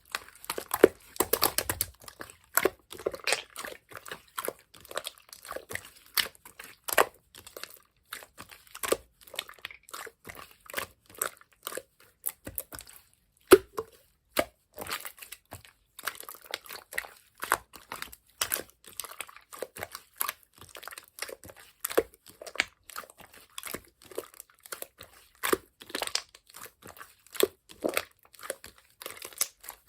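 Yellow clear slime being pressed and squeezed by hand, giving a steady run of irregular sticky pops and clicks, several a second.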